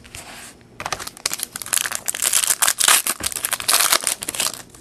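Trading card pack wrapper crinkling and crackling as it is torn open and handled by hand. The dense crackle starts about a second in and stops just before the end.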